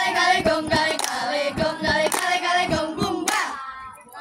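A group of girls singing a cheer song together in unison, clapping their hands on the beat. The singing and clapping stop about three and a half seconds in.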